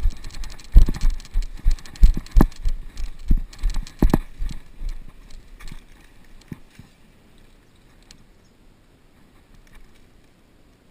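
A series of irregular knocks and thumps, a few a second, dying away about five or six seconds in and leaving only faint background noise.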